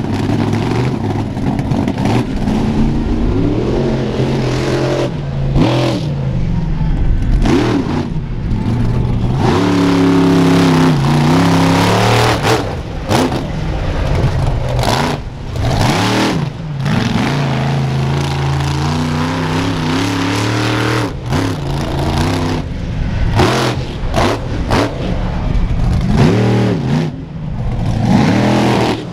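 Monster truck engines revving hard again and again, each burst climbing in pitch and then dropping back, with short lulls between bursts.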